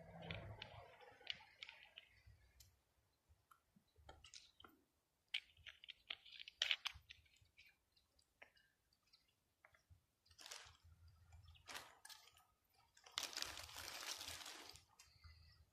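Near-silent outdoor ambience with scattered faint crackles and clicks, and a brief burst of rustling noise near the end.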